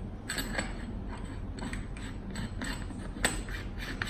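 Lens being fitted back onto an LED gobo projector by hand: a run of small clicks and scraping from the parts being handled, with one sharper click a little over three seconds in.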